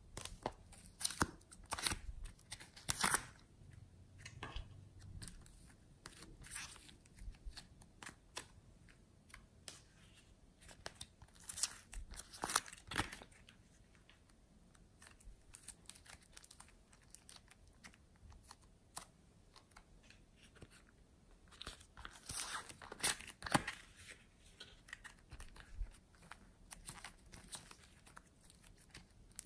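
Hands squishing and stretching slime, making irregular sticky crackles and small pops. The crackling comes in louder clusters near the start, in the middle and about three-quarters through, with quieter squelching between.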